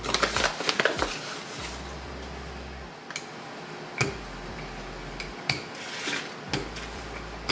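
Wooden rolling pin rolling dough flat on a floured wooden tabletop: a quick cluster of light taps and rubbing in the first second, then a low rumble of the rolling with a sharp knock about once a second as the pin meets the table.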